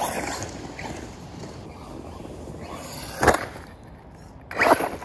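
FTX DR8 1/8-scale electric RC truck driving over rough woodland dirt and climbing onto a stump, its tyres and chassis scrabbling. There is a sharp knock a little past three seconds in and a louder rough burst near the end.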